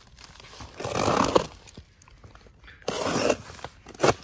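Utility knife slicing through packing tape and cardboard on a box, two scraping cuts about two seconds apart, then a short sharp click near the end.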